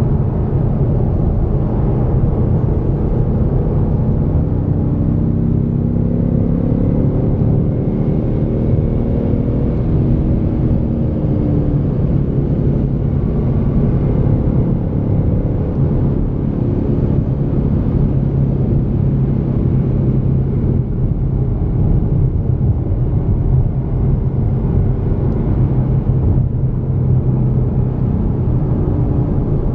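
Ford Mustang EcoBoost's turbocharged four-cylinder engine and road rumble heard from inside the cabin while driving at speed, a steady low drone. The engine note rises and falls now and then as the revs change.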